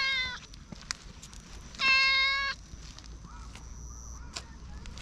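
Brown tabby-and-white cat meowing: a short meow falling in pitch at the start, then a longer, louder meow held at a steady pitch about two seconds in.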